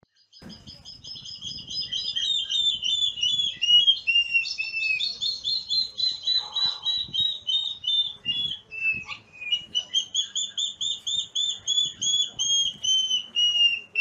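Water thick-knees calling: long runs of fast, piping whistled notes that swell in loudness and slowly fall in pitch, two birds' runs overlapping. A second bout starts about nine seconds in, rising at first and then sliding slowly down.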